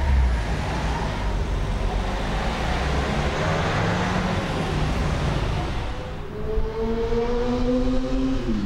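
Street traffic: cars driving past on a city street. One engine note rises steadily over the last couple of seconds, then drops near the end.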